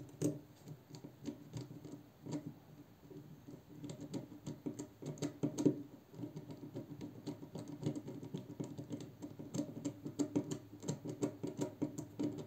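Ratchet screwdriver clicking in quick, uneven runs as its Torx bit works a screw out of a folding knife, sparser at first and denser after a few seconds.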